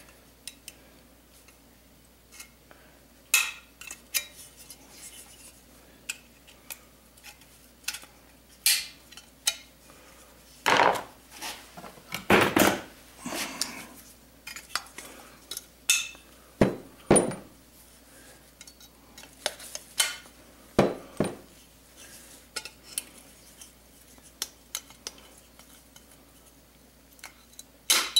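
Needle-nose pliers clinking and scraping against a Stihl MS 660 chainsaw's sheet-metal muffler as it is worked by hand: irregular metallic clicks, with a cluster of longer scrapes a little before the middle.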